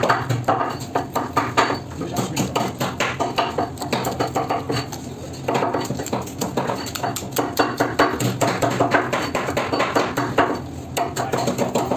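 Rapid, repeated knocking and scraping of a knife working along a fish on a wooden cutting board as it is filleted and skinned, with a short lull about halfway through and another near the end.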